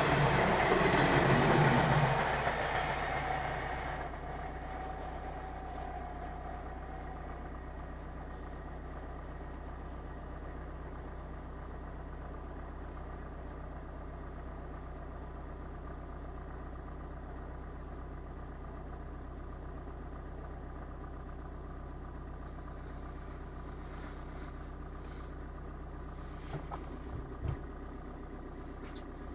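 Electric passenger train rushing past the level crossing, loud for the first two seconds and dying away by about four seconds in. A car engine then idles steadily, heard from inside the cabin, with a few short knocks near the end as the crossing barriers begin to lift.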